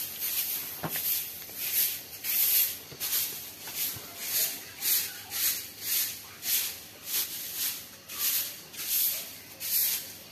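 Broom sweeping loose rice straw and dust across a threshing yard, one swish after another at about one and a half strokes a second.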